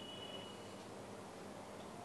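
Faint room tone with a low steady electrical hum, and a faint high whine in the first second.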